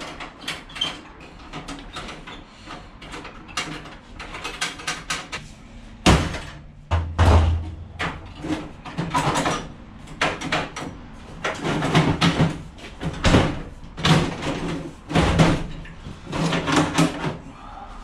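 Scrap metal being pulled apart and handled: an irregular run of metal clanks, scrapes and knocks, with heavier bangs from about six seconds in.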